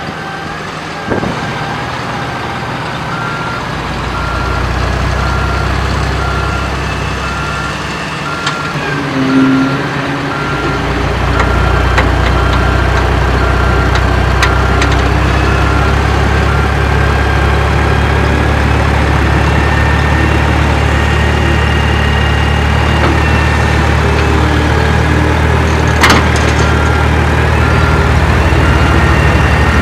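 Heavy-vehicle engine running steadily, getting louder a few seconds in and again about ten seconds in, with a fast, regular reversing beeper early on and again near the end. A sharp click sounds once near the end.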